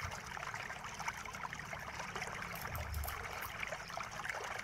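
Faint small clicks and scrapes of a screwdriver undoing a laptop's hinge screws, over a steady background hiss.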